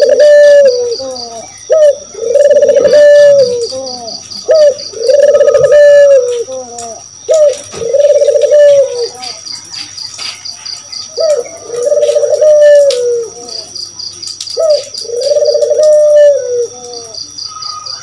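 Barbary doves (burung puter) cooing over and over: each call is a short rising note followed by a long held coo of about a second, repeated every few seconds with a longer gap in the middle. Insects chirp steadily in fast, evenly pulsed trills underneath.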